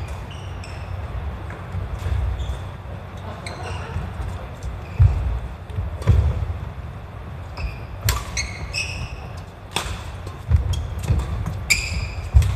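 Badminton singles rally on a wooden gym floor: several sharp racket strikes on the shuttlecock, shoes squeaking briefly on the floor, and the thud of footfalls as players lunge and jump.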